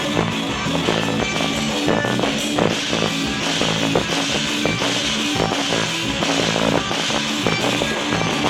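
Loud festive band music with a steady beat, plucked strings prominent, accompanying a quadrilha junina dance.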